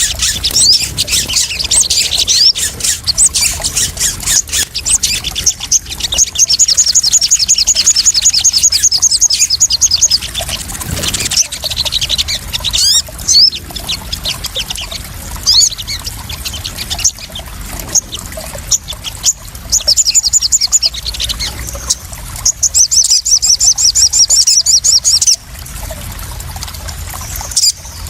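Sogon sunbirds calling: high, rapid trills, several of them long runs of fast notes, with shorter sharp chirps between, over water pouring and splashing.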